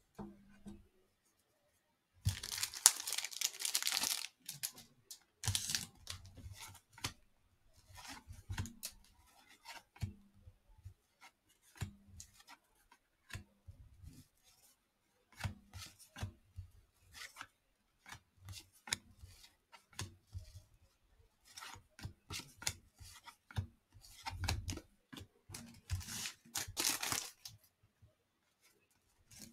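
Cellophane wrapper of a 1989 Fleer baseball cello pack torn open about two seconds in, followed by a run of short soft clicks and snaps as the cards are thumbed through one by one. Another wrapper crackles and tears near the end.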